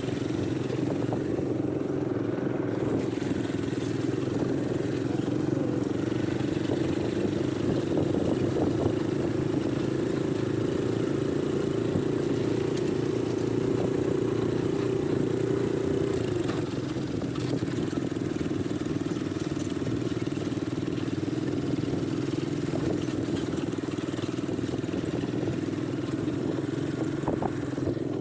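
ATV engine running steadily while riding, its note climbing slightly and then easing back a little over halfway through.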